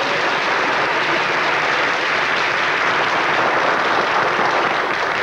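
Large audience applauding, a dense and steady clapping, greeting a performer who has just been announced.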